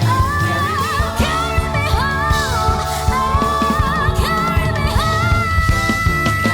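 A woman sings a slow soul ballad over a band with drums and bass, with winding vocal runs, then holds a long high note from about five seconds in.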